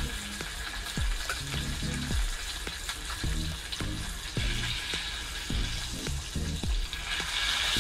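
Walleye pieces frying in a pan of hot butter, a steady crackling sizzle that grows louder near the end.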